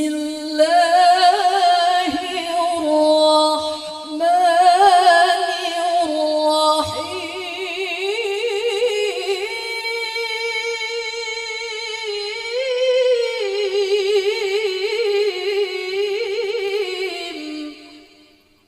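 A woman's unaccompanied melodic Qur'an recitation (tilawah), sung into a handheld microphone in long ornamented phrases with heavy vibrato. It pauses briefly for breath twice early on, then one long phrase climbs in pitch midway and is held until it fades out near the end.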